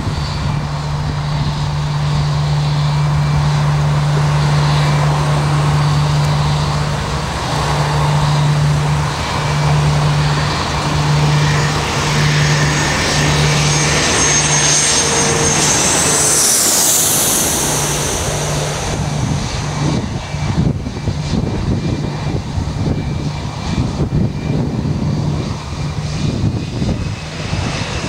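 Jet engines of a rear-engined T-tail airliner on approach, growing louder as it nears, then passing close overhead a little past halfway with a high whine that falls in pitch. A rough, fluctuating rumble follows.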